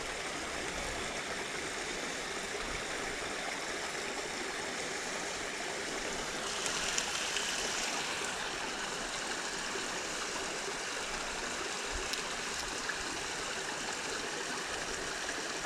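Creek water running steadily over rocks, a constant rushing and trickling that swells a little in the upper range for a second or two about halfway through.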